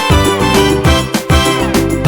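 Upbeat background music with a steady beat of drum hits and sustained pitched instruments.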